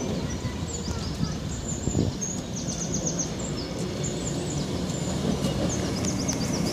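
A euregiobahn diesel multiple unit approaching, a steady low rumble that grows as it nears. Quick runs of high bird chirps come through about two and a half seconds in and again near the end.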